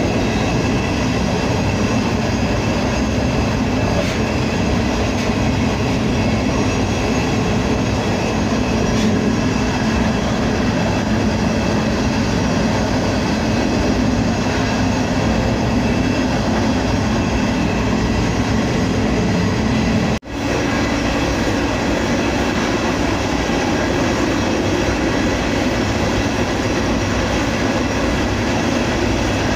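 Empty covered grain hopper car rolling in a moving freight train, heard from its end platform: a loud, steady running noise with a few thin steady tones over it. The sound drops out for an instant about twenty seconds in.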